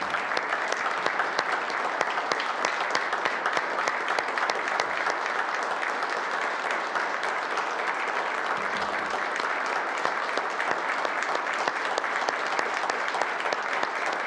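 Sustained applause from the members of a legislative chamber: many hands clapping steadily at once, without a break.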